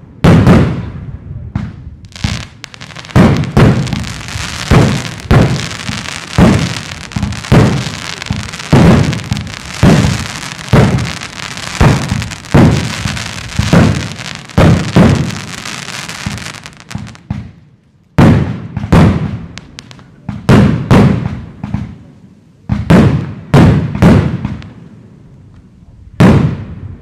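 Fireworks display: a rapid run of aerial shell bursts, the bangs coming roughly every half second to second. Under the bangs a dense high crackling runs from a few seconds in until past the middle, then stops. After a brief lull the bursts resume more sparsely and thin out near the end.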